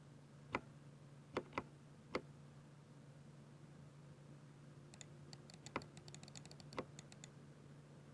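Typing on a Ducky 60% mechanical keyboard with silver switches: four separate sharp key strikes in the first two seconds, then about two seconds later a quick run of light clicks with two louder strikes in it.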